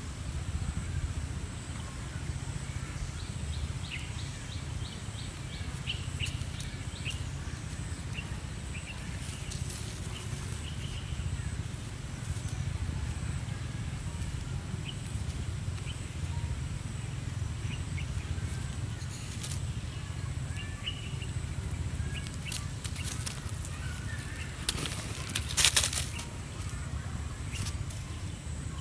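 Outdoor ambience: a steady low rumble on the microphone, with faint short high chirps and scattered light clicks, and one loud brief rustle about 25 seconds in.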